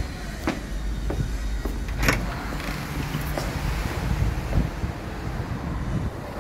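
Footsteps and handling knocks from someone walking with a handheld camera, over a steady low rumble. The knocks come about half a second apart at first, with a sharper knock about two seconds in.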